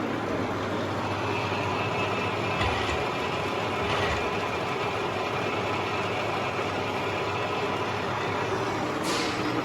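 Huron MU6 milling machine running steadily, a constant mechanical hum with a few faint steady tones. There are two brief knocks about three and four seconds in, and a short hiss near the end.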